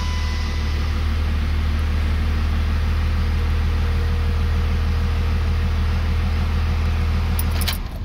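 24-valve Cummins inline-six turbodiesel with a VP44 injection pump idling steadily just after starting. It is switched off near the end: a few key clicks, then the engine stops.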